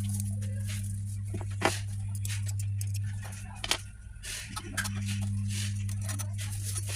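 Scattered sharp clicks and light rattles of small hardware being handled, over a steady low electrical hum. The sharpest clicks come about two seconds in and near the middle.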